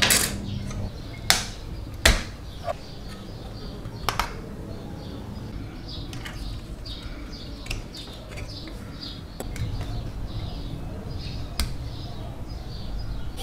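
Small screwdriver working screws out of a scale-model truck chassis, with a few sharp clicks and taps of tool on model parts, the loudest about a second and two seconds in.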